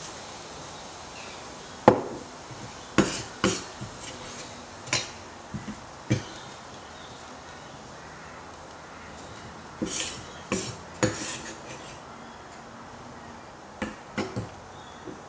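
Sharp clinks and taps of kitchenware on a wooden board and a metal baking pan, in small clusters of one to three knocks a few seconds apart.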